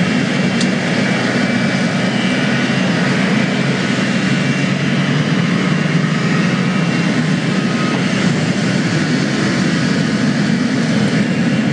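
Loud, steady roar of jet aircraft engines.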